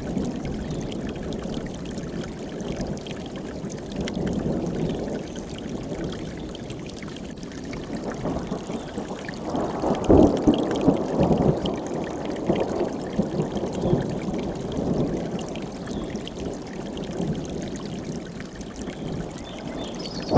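Mountain stream flowing, a steady rushing water noise that swells louder about halfway through.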